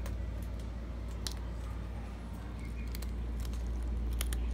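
Cats chewing raw tilapia, a few scattered wet crunching clicks, over a steady low hum.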